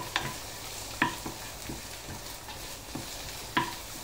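Wooden spoon stirring and scraping a tomato-and-onion sofrito with paprika in a frying pan, over a steady sizzle, with a few sharp knocks of the spoon against the pan.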